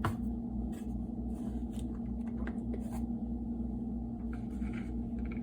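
Light clicks, taps and short scrapes, spaced about a second apart, from the mini food processor's parts being handled, over a steady low electrical hum.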